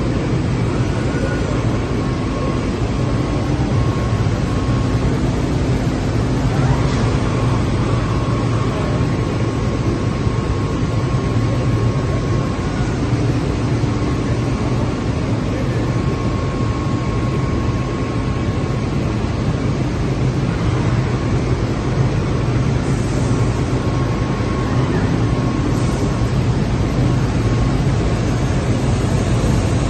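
SCM Record 132 CNC machining centre running: a steady low hum with a faint whine that comes and goes.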